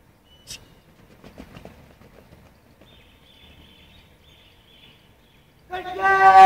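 Faint scuffs and small knocks, then about five and a half seconds in a loud, drawn-out shouted drill command held on one pitch.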